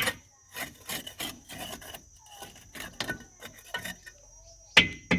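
Hand tool scraping repeatedly along freshly plastered mortar, cutting back the excess render at a wall corner in quick strokes, about two to three a second, with two sharp knocks near the end.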